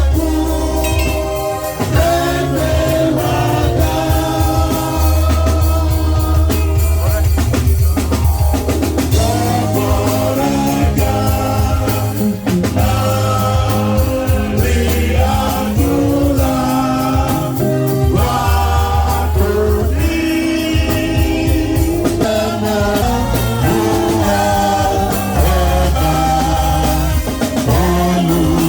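Gospel music: a sung melody over a heavy bass line and drums.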